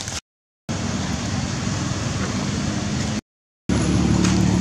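A steady low engine hum with road-like noise, typical of a motor vehicle running nearby. It is broken twice by brief dead silences, and is louder and more droning after the second gap.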